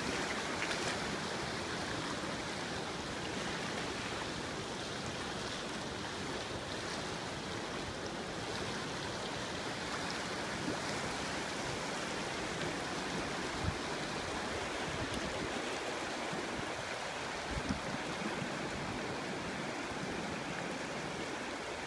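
Fast, muddy floodwater rushing and churning down a desert river wash in a monsoon flash flood, a steady rush of turbulent water. Two brief low thumps sound about two-thirds of the way in.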